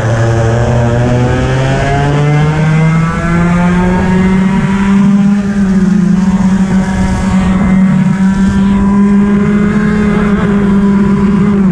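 Racing kart engine at full throttle, heard close from the driver's seat: its pitch climbs steadily over the first few seconds as the kart accelerates, then holds high with small dips through the corners.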